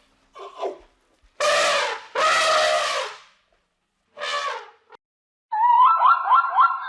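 Animal calls: four loud, brassy, trumpet-like blasts, the second and third the longest. A different, rapidly warbling call starts near the end.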